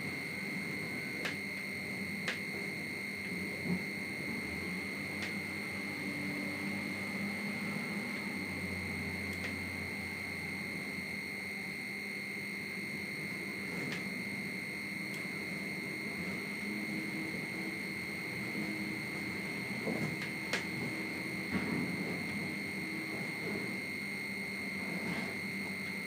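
Crane wind-speed alarm buzzer sounding continuously as one steady high tone, the warning that wind has passed 21 m/s. Beneath it runs a low machinery hum, with a few faint clicks.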